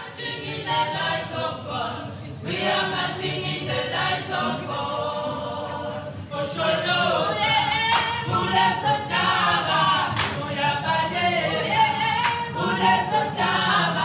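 A group of African singers sing together in harmony with no instruments. Sharp hand claps come every couple of seconds in the second half.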